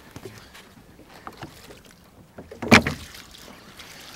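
Water being splashed from a plastic cup over a sturgeon lying in a boat's fabric cradle. Faint knocks and handling sounds come first, with one brief, loud splash a little under three seconds in.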